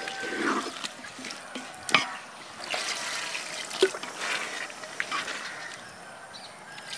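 Wooden spatula stirring a wet prawn and palm-sprout curry in a metal pot: liquid sloshing and squelching, with a few sharp knocks of the spatula against the pot, the loudest about two seconds in.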